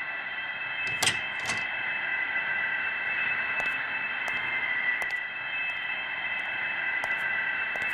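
A steady electronic hum of several held high tones over a hiss, with scattered faint clicks and two short noisy bursts about a second in.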